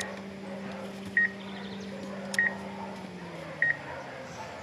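Short high double beeps repeating about every second and a quarter, over a steady low hum that slides down in pitch about three seconds in.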